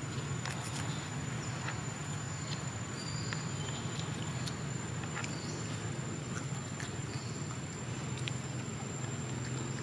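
Outdoor ambience: a steady high insect drone over a steady low rumble, with scattered soft clicks and a few brief high chirps.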